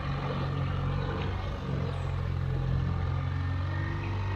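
Boat's outboard motor running steadily at trolling speed, a low, even hum.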